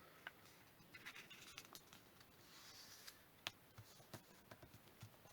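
Faint rustling and scattered light ticks of a sheet of origami paper being folded in half into a triangle and creased.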